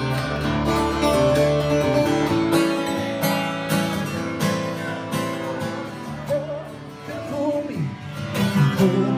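Acoustic guitar strummed in a steady rhythm of chords, with a voice singing over it in the second half.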